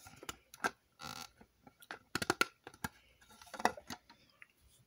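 Hard plastic LEGO parts clicking and rattling as they are handled and fitted together on the book casing's hinge, with a short rustle about a second in and a quick run of clicks a little after two seconds.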